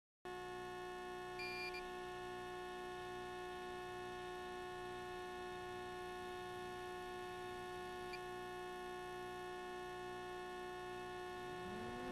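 Steady electrical hum and buzz of several fixed tones with a slow low throb: interference on an FPV receiver's DVR audio track. Near the end, whines sweep up and down as the 7-inch quadcopter's motors spool up.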